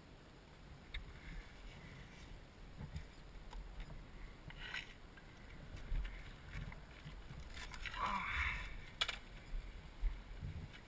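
Quiet handling noises from a nylon backpack and its straps being fitted onto a dirt bike's seat, with a louder rustle about eight seconds in and a sharp click about a second later.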